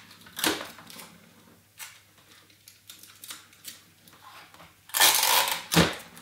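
Cardboard strips handled with light clicks and rustles. About five seconds in, sellotape is pulled off a desk dispenser with a loud ripping hiss and torn off against the cutter with a sharp snap.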